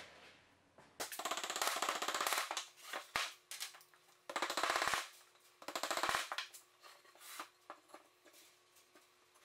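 A white mallet tapping wooden dowels into drilled holes in solid oak, heard as several quick runs of rapid, evenly spaced knocks, the longest about a second and a half.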